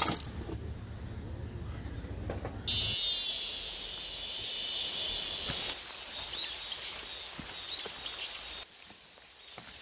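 A low rumble at first, then, from a sudden change about three seconds in, forest ambience: a steady high hiss with birds chirping over it.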